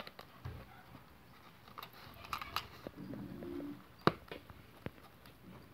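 Thin plastic deli container handled and its snap-on lid pried open: scattered light clicks and crinkles of the plastic, the sharpest click about four seconds in. A short low hum about three seconds in.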